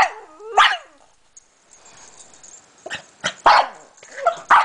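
Pug barking in short, sharp barks: two near the start, a pause, then a quick run of five over the last second and a half.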